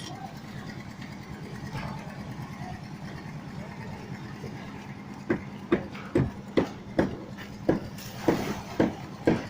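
An engine runs steadily with a constant low hum. About five seconds in, sharp knocks begin at roughly two a second, like blows struck on the building work.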